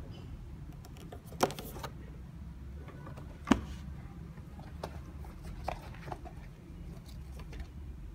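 Cardboard shoe box being handled, turned over and set down: two sharp knocks about two seconds apart, followed by a few lighter taps and clicks.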